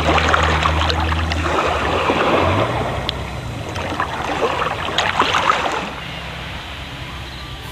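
Small waves washing over a pebbly, rocky shore, the rush swelling twice over a steady low hum, then dying down near the end.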